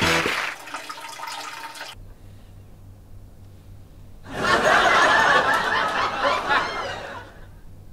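Sitcom laugh track: a studio audience laughs for about three seconds, starting about four seconds in. Before it, in the first two seconds, the rush of a flushing toilet fades out.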